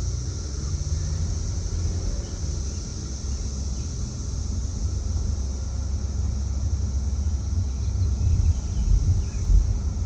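Car driving, its low road rumble steady throughout, under a continuous high-pitched chorus of periodical cicadas heard from the car, a weird, echoing drone.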